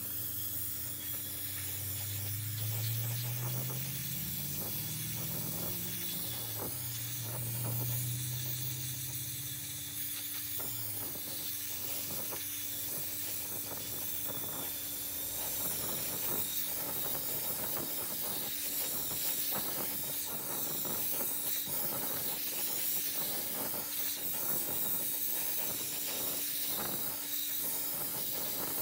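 Oxy-fuel torch flame hissing steadily as it heats a coil of gold wire.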